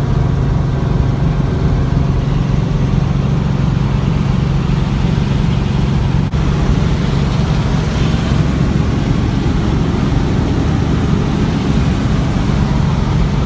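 Helicopter running with a loud, steady drone of engine and rotor, broken only by a very brief dip about six seconds in.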